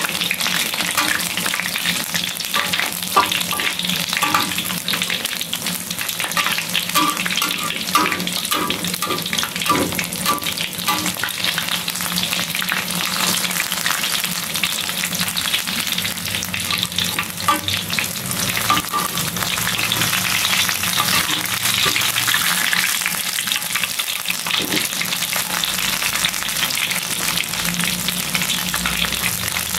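Battered stuffed tofu deep-frying in hot oil in a wok: a steady crackling sizzle, with occasional clicks as a spatula turns the pieces.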